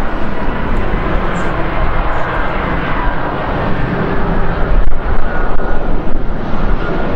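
Jet engine roar from an Airbus A330-243F freighter, its Rolls-Royce Trent 700 turbofans at approach power as it comes in low on final with gear down. The loud, steady rumble swells unevenly about five seconds in.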